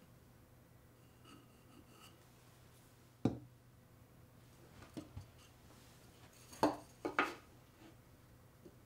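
Wood and tools handled on a workbench while a wooden strip is glued and set onto an MDF board. A single sharp knock comes about three seconds in, two light taps follow near five seconds, and a cluster of louder wooden knocks comes around seven seconds as the strip is placed and pressed down.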